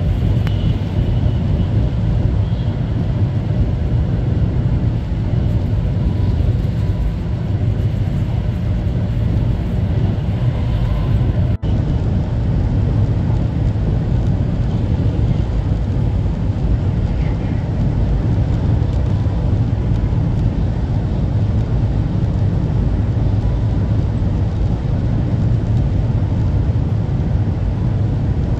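Steady low rumble of a Taiwan High Speed Rail 700T train running, heard from inside the passenger cabin, with a momentary break in the sound about twelve seconds in.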